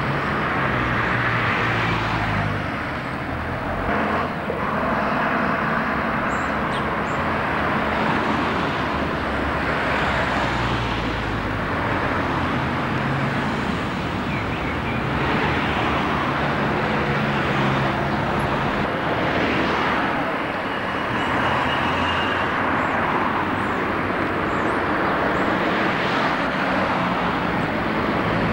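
Road traffic: double-decker bus and car engines running with tyre noise, the sound swelling and fading every few seconds as vehicles pass.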